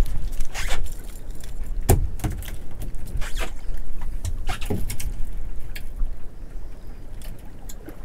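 Wind rumbling on the microphone, with a run of irregular sharp knocks and clicks, the loudest about two seconds in, as small sand eels are unhooked from a sabiki rig with crushed barbs and drop off into a bucket on a small boat.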